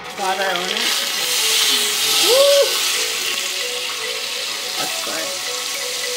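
Butter sizzling as it melts in a hot stainless steel pot. The sizzle starts about a second in, is loudest just after two seconds, then settles to a steady hiss.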